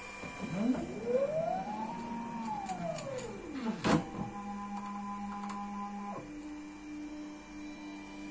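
Desktop injection molding machine's electric drive running through a semi-automatic cycle. Its motor whine rises in pitch and falls back over about three seconds and ends in a sharp click. The machine then runs with a steady whine, which changes to a lower steady whine about six seconds in and stops abruptly near the end.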